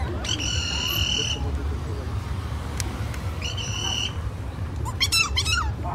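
High-pitched whistle blasts: one held for about a second, a shorter one about three seconds later, then a few quick squeaky sliding notes near the end, over a low street-traffic rumble.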